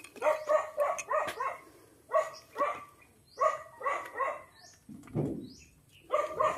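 A dog barking repeatedly, in quick bouts of several barks with short pauses between them.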